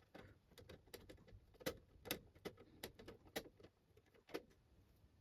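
Faint, irregular light clicks and taps, two or three a second, from a screwdriver working on the screws of a set-top box's casing.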